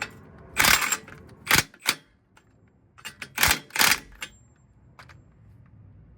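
A wrench tightening the wheel hub nut: a series of sharp metal clicks and clacks in two clusters, about a second in and again three to four seconds in, with one last click near the end.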